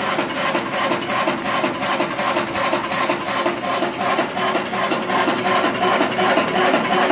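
A home-built electric drum coffee roaster running: the motor-driven steel drum turns over the steady rush of its cooling fans, with a short squeak repeating about three times a second. The builder puts the noise down to the drive shaft turning in a tightened collar with no bearing.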